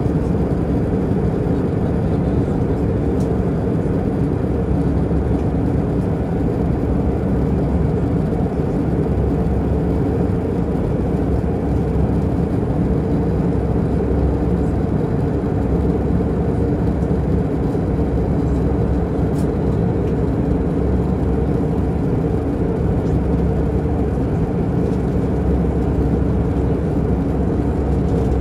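Airbus A319 cabin noise in flight: a steady low rumble of jet engines and airflow over the fuselage.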